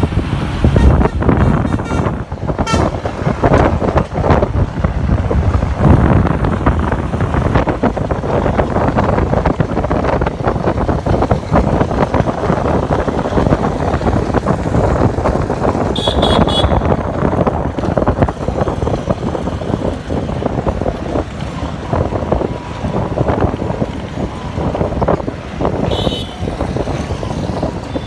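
Wind rushing over the phone's microphone and road traffic noise during a ride. Short high horn toots sound about 16 seconds in and again near the end.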